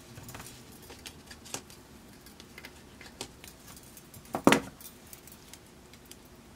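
Copper wire pieces clinking and rattling against each other and the pliers as they are handled and bent, with a louder jangle about four and a half seconds in.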